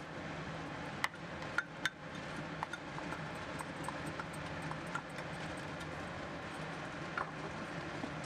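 Semolina being added to boiling water in a steel saucepan and stirred with a wooden spatula: a few sharp clinks of the ceramic cup and spatula against the pan, several close together about a second in and a few more spread later, over a steady low hum.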